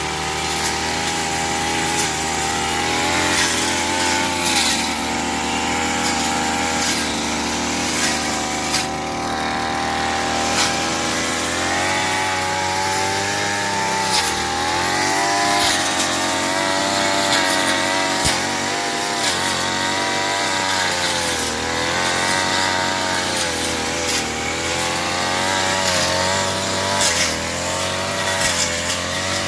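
Small petrol engine of a grass-cutting machine running steadily as it cuts grass, its revs rising and falling repeatedly under load.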